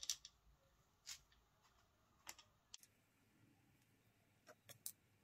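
Near silence, with a handful of faint soft clicks and rustles from hands working a long needle and braided line through a piece of sponge.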